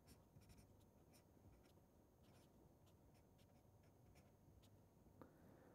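Very faint scratching of a felt-tip marker writing on paper in short strokes, with one light tick near the end.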